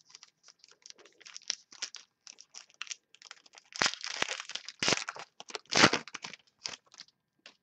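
Trading cards and their plastic sleeves being handled, a string of short crinkles and rustles, loudest between about four and six seconds in.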